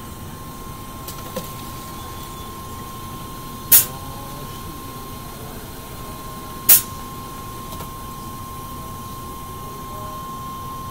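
Coca-Cola Freestyle self-serve soda fountain dispensing a drink into a paper cup over a steady machine hum with a thin high tone. Two brief, loud sharp sounds stand out, about four seconds in and again about three seconds later.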